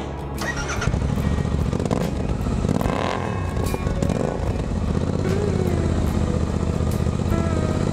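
Royal Enfield Interceptor 650's 648 cc parallel-twin engine catching about a second in and then idling steadily through newly fitted aftermarket silencers.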